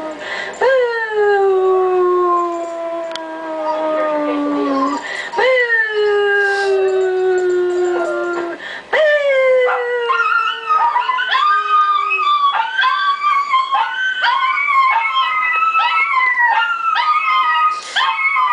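Dogs howling. A beagle gives three long howls, each sliding down in pitch. From about ten seconds in, a rapid string of short, higher yipping howls follows.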